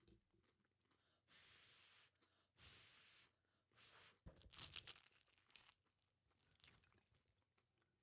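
Faint sounds of eating a hot pizza-stuffed biscuit: three short breaths out in the first half, then soft chewing with small crackly mouth clicks.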